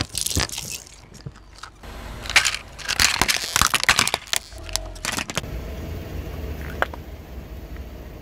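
A car tyre rolling over and crushing small plastic toys on asphalt: a dense run of sharp cracks and crackles of breaking plastic between about two and five and a half seconds in, then a steady low rumble of the tyre and car.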